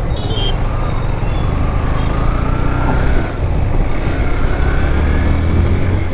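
Motorcycle engine running on the move, its pitch climbing through the middle as it picks up speed, with wind and road noise on an action camera's microphone.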